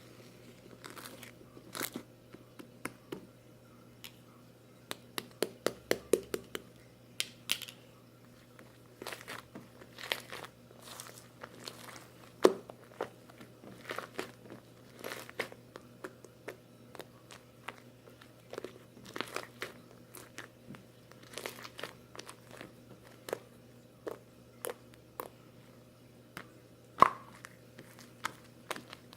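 Slime being kneaded and pressed, giving irregular crunchy clicks and crackles with a few sharper pops.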